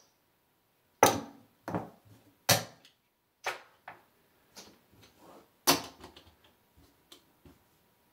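Casino chips clicking together as they are picked up, stacked and set down by hand, in a series of sharp, irregular clicks.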